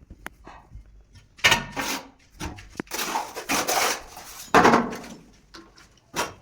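Hand work on building materials: a few sharp knocks, then several loud scrapes of about half a second to a second each, the longest about halfway through.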